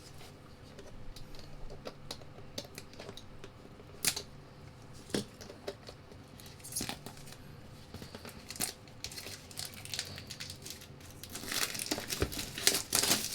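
Wrapping being torn and crumpled off a retail product box: irregular crinkling and tearing with scattered crackles, busier and louder near the end.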